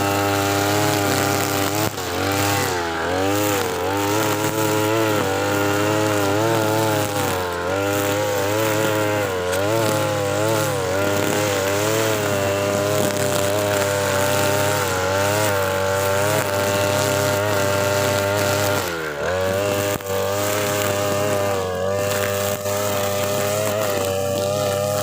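TB43 two-stroke brush cutter with a nylon trimmer head running at full throttle through thick grass, its engine pitch wavering up and down as the load changes. About nineteen seconds in the engine bogs down sharply under load and quickly picks back up.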